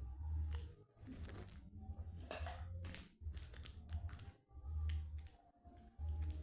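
Sweets packaging being handled: irregular crinkles and clicks, with dull low thumps of things being moved about.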